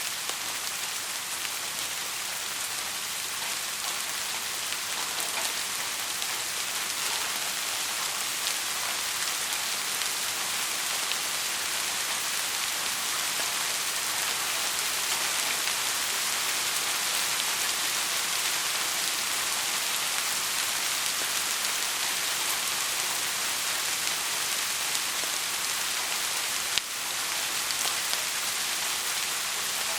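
Heavy rain falling steadily, a dense even hiss of drops with no thunder. A single brief click is heard near the end.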